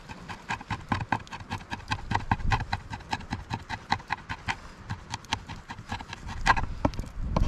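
A kitchen knife chopping fresh thyme on a wooden cutting board: quick, even knocks of the blade on the wood, about five a second, with one louder knock near the end.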